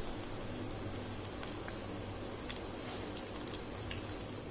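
Taro pieces deep-frying in hot oil: a steady sizzle with many small scattered pops.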